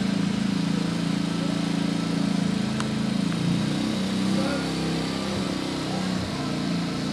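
A motor vehicle's engine running steadily: a low, slightly wavering rumble with a hiss above it.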